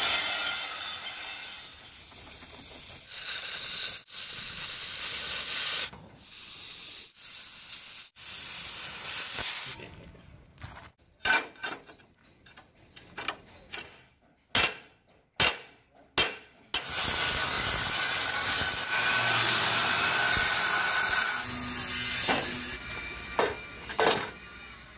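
Angle grinder grinding a steel strip, then a run of separate sharp hammer blows on steel plate over several seconds, then a longer stretch of steady grinding, with a few more hits near the end.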